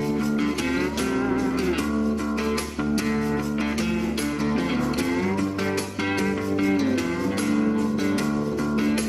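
Background music led by guitar, with a steady beat and a bluesy feel.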